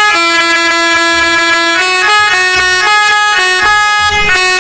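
Telolet bus horn playing a melody: held, horn-like notes that step up and down in pitch every half second or so.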